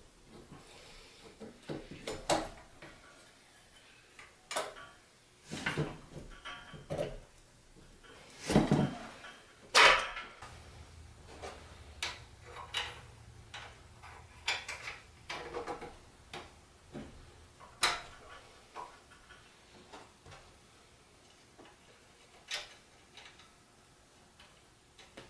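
Irregular metal clanks, knocks and light rattles of a Tomos moped's rear wheel and axle being fitted back into the frame, with the two loudest knocks a little past the middle.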